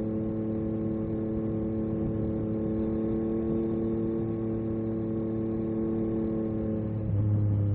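Yamaha MT-09 SP three-cylinder engine through an Akrapovic carbon racing exhaust, running at a steady cruise with a nearly constant pitch. Near the end the pitch dips slightly and the low rumble gets louder.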